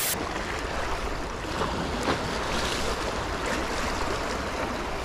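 A brief burst of static-like noise from a glitch transition at the very start, then the steady wash of sea water against shore rocks.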